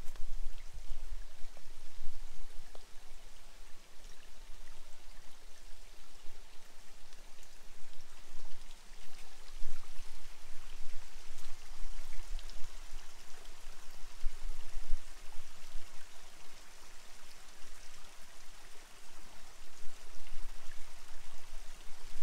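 Steady rush of running water, with intermittent low rumbles on the microphone.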